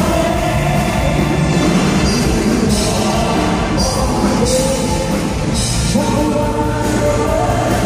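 Loud live music from an orchestra on stage, with held chords and four bright crashes, likely cymbals, in the middle.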